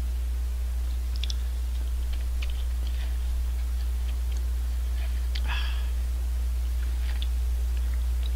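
Close-miked eating of cup ramen: chewing, with small scattered clicks of the utensils against the cup and one longer noise about five and a half seconds in. A steady low electrical hum lies under everything and is the loudest sound.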